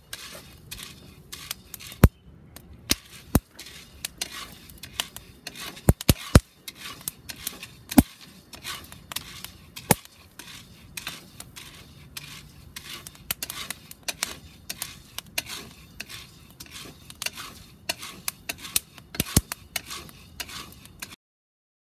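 Coffee beans being stirred with a wooden spoon in a cast iron pan, scraping and rattling, with sharp pops at irregular intervals: the beans have reached first crack.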